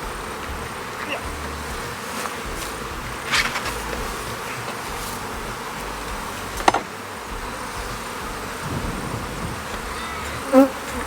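Honeybees buzzing steadily around an open hive, with a sharp knock a little past halfway and a lighter one about a third of the way in, from handling the hive.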